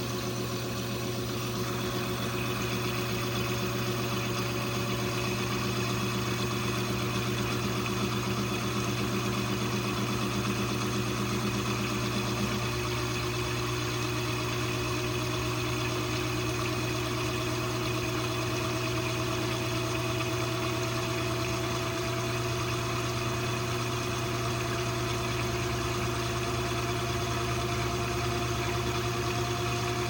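2012 LG top-load washing machine spinning up, with the drum still climbing toward full spin speed: a steady hum and rushing air, with a motor whine that rises slowly in pitch throughout. One lower tone drops out about halfway through.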